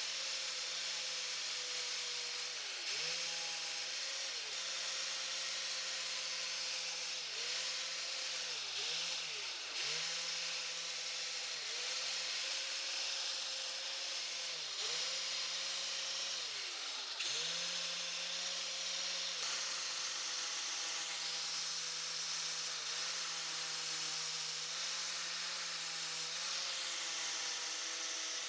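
Angle grinder running with its disc grinding the forged steel head of a monkey wrench, a steady high grinding hiss over the motor's whine. The motor's pitch sags and recovers each time the disc is pressed into the steel, about a dozen times, with one deep drop a little past halfway.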